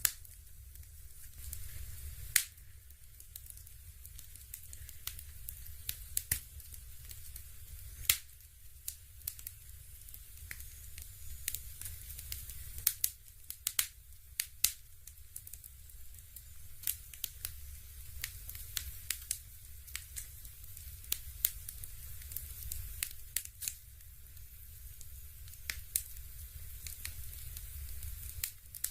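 Fireplace crackling: irregular sharp crackles and a few louder pops, several a second, over a steady low rumble.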